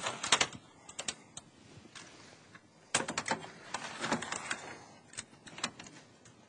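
Metal hot-plug server power supply module clicking and rattling as it is handled and pushed by hand into a bay of a server enclosure: several bunches of sharp metallic clicks, the busiest about three to four and a half seconds in.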